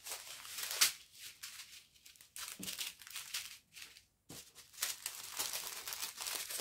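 Strips of small plastic bags of diamond-painting drills crinkling and rustling as they are handled and laid down, in uneven bursts with a sharp crackle just before a second in and denser rustling near the end.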